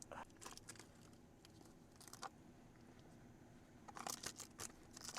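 Mostly near silence, with faint clicks and crinkles as a block of extra-firm tofu is cut by hand. A quick run of them comes about four seconds in.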